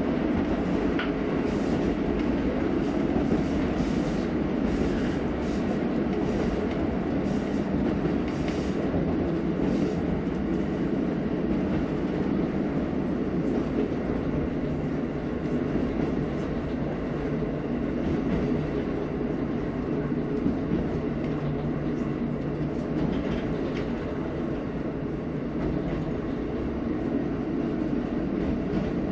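KiHa 54 diesel railcar running along the track, heard from inside its rear driving cab: a steady running drone of the train on the rails, with faint light clicks in the first ten seconds or so.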